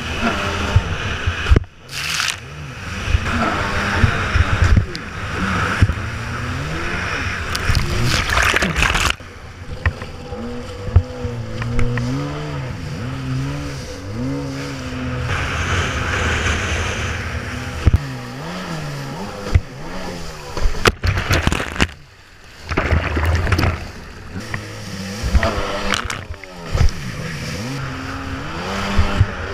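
Yamaha SuperJet stand-up jet ski's engine revving up and down as it runs over chop, with water spray hissing around the hull. The sound drops away briefly twice, about two seconds in and again around twenty-two seconds.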